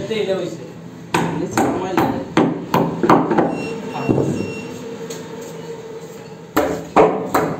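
A hammer striking the edge of a wide wooden plank panel: a run of about six sharp knocks roughly half a second apart, a pause, then three more knocks near the end.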